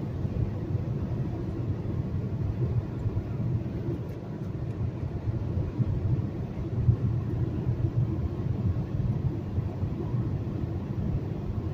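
Steady low rumble of a car travelling at highway speed, heard from inside the cabin: tyre and engine noise.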